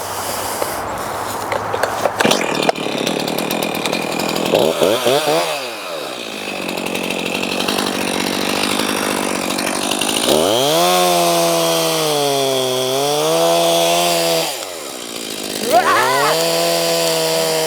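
Chainsaw cutting into a maple trunk to fell it, the engine held at high revs and sagging under load, then rising again. The revs drop back briefly twice, once about 5 seconds in and again near 15 seconds.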